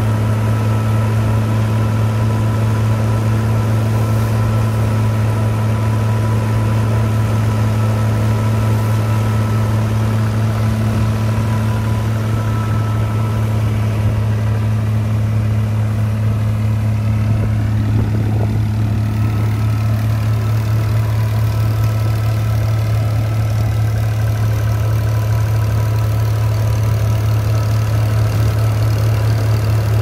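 Tractor engine running at a steady speed, powering a peanut thresher that is threshing peanut vines, with a steady higher whine over the low engine hum.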